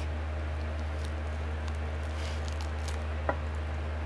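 Eating rice and curry by hand: soft wet squishing and small clicks as fingers work the food on a metal plate, with one sharper click about three seconds in, over a steady low hum.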